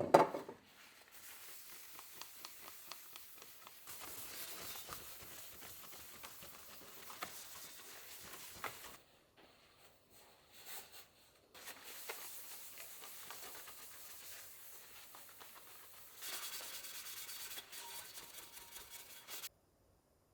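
Kitchen cooking sounds: a light hiss with rubbing and scraping, in several stretches that stop and start abruptly, after a loud knock at the very start.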